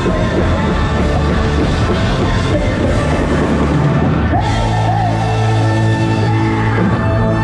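Loud rock music played on stage over the PA, busy with drums, giving way about four seconds in to a long held chord.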